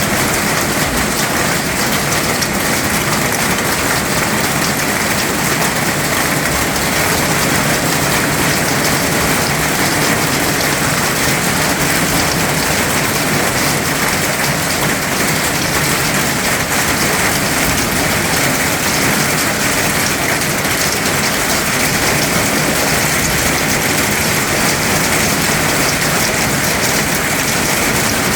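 Rain falling hard and steadily on surfaces, a loud, even hiss of drops with no letup.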